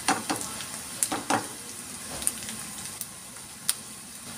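Diced onions sizzling in olive oil in a frying pan, being sautéed until lightly browned. A spatula scrapes and taps against the pan several times as they are stirred, loudest near the start and about a second in.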